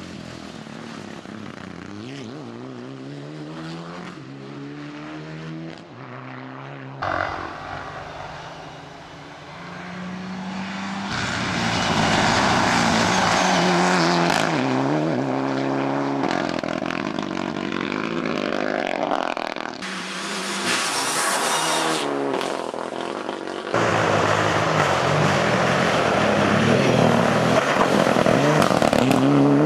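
Mitsubishi Lancer Evolution rally cars driven hard past the camera on a tarmac stage. The engine pitch climbs and drops again and again as they rev through the gears and slow for corners. The sound cuts between several short passes and is loudest in the second half.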